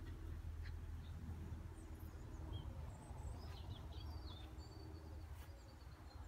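Faint outdoor ambience: a steady low rumble, with a few short bird chirps in the middle.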